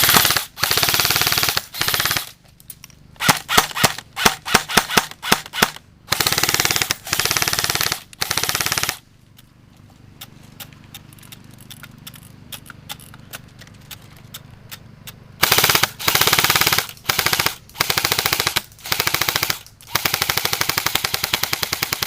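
Battery-powered airsoft M4 rifles firing: full-auto bursts of one to two seconds each, a fast mechanical rattle, mixed with quick single shots. The firing stops for about six seconds in the middle, then the bursts start again.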